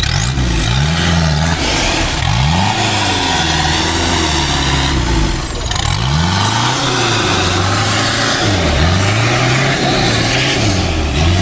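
Off-road 4x4's engine revving hard and repeatedly, its pitch climbing and dropping again and again as it drives through deep mud.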